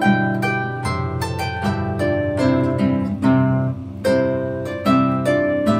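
Solo harp playing as background music: a steady run of plucked notes that ring on over low bass notes.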